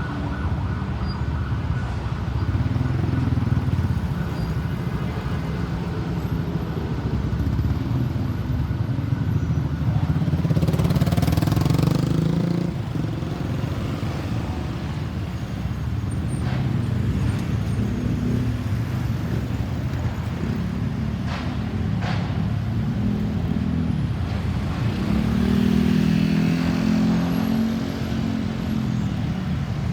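Road traffic: engines of passing cars and motorcycles, steady rumble with louder vehicles going by about ten seconds in and again about twenty-five seconds in.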